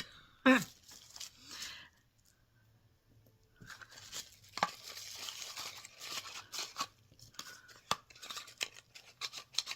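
Ornament packaging being handled: paper and packing rustling, crinkling and tearing, with scattered small clicks. It starts about three and a half seconds in after a brief lull and goes on to the end.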